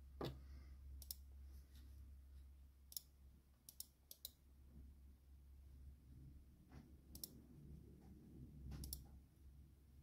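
Computer mouse clicking, scattered single and paired clicks spread irregularly through the stretch, over a faint steady low hum.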